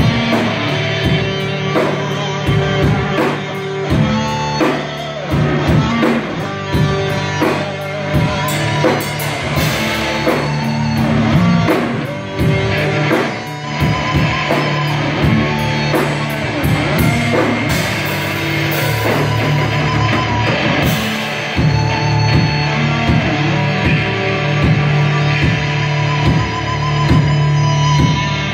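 A rock band playing live: electric guitars over a drum kit, with no break in the music.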